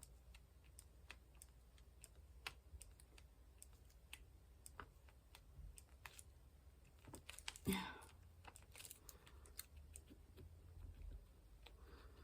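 Faint, irregular light taps and clicks of a diamond-painting pen setting square drills onto the canvas, with one louder knock a little under eight seconds in.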